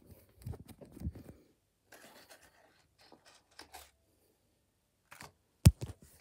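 Handling noise from a phone being carried and moved: rustles, scrapes and scratches with a few dull thumps, and one sharp knock near the end, the loudest sound.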